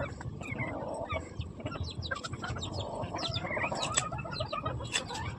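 Birds calling in a rapid run of many short chirps that overlap one another.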